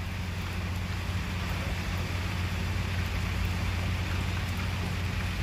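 Steady wind blowing over an open, choppy river, rumbling deeply on the microphone, with the hiss of rough water.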